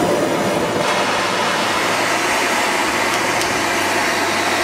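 Handheld MAPP-gas torch burning with a steady, loud hiss as its flame heats a copper pipe fitting for soldering.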